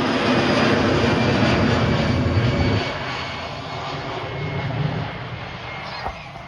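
Jet airliner's engines running loud, heavier for the first three seconds and then falling off to a lower, steady noise.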